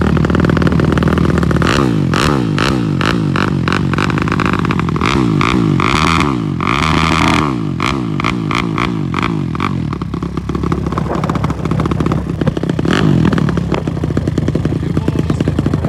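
Several motorcycle engines revving, their pitches rising and falling and crossing one another, with repeated sharp cracks through the first half.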